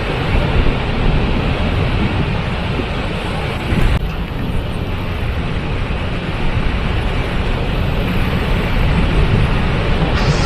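Waterfall: a loud, steady rush of falling water, heaviest in the low end, with a sudden dulling of the top end about four seconds in.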